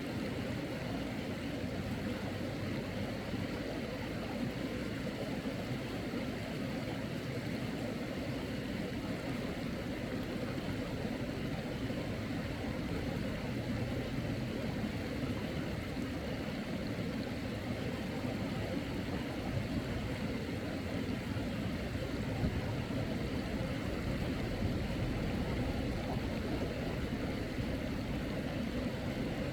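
Steady, unbroken rushing of stream water.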